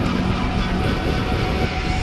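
Snowcat engine running with a steady drone.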